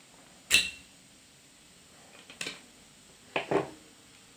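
Small hard parts being handled during the repair of an opened car phone charger: four sharp clicks and knocks, the loudest about half a second in with a brief ring, one near the middle, and two in quick succession near the end.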